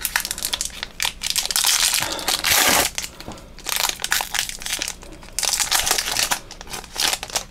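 Trading-card booster-pack wrapper crinkling and crackling in irregular bursts as it is handled and opened by hand.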